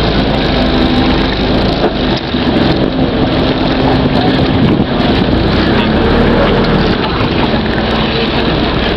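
Motorized outrigger boat's engine running steadily and loudly under a dense rushing noise, with a few wavering engine tones.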